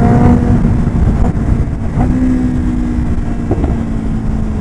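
Kawasaki ZX-10R inline-four engine running at a steady cruise, its note holding nearly level, under heavy wind rumble on the microphone.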